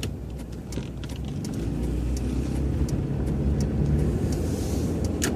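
Cabin sound of a 2002 Nissan Xterra driving, its 3.3-litre VG33E V6 and the road noise growing louder about two seconds in, with scattered light clicks over the rumble.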